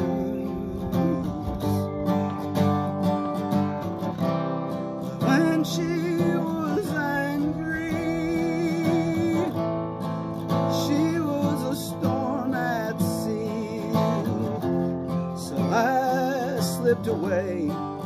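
Acoustic guitar strummed steadily, with a man's voice singing over it in long, wavering held notes during stretches of the passage.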